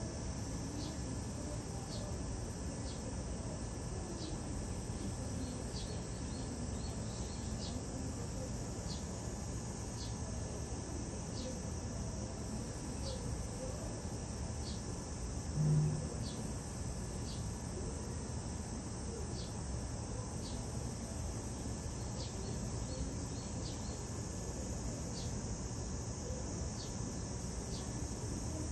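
Insect chirping: short high chirps about once a second over a steady high hiss and low background rumble, with one brief low hum about halfway through.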